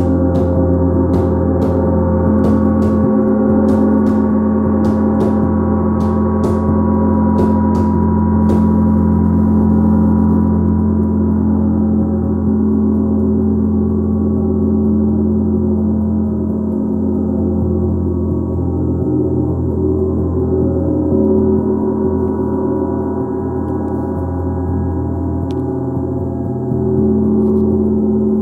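A gong played with a mallet in repeated soft strokes, about two a second, for the first eight seconds or so. The strokes then stop and the gong's dense wash of overlapping tones rings on and slowly swells and ebbs.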